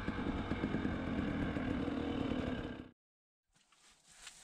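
KTM 300 XC-W two-stroke dirt bike engine running while riding, cutting off suddenly about three seconds in, followed by a brief silence.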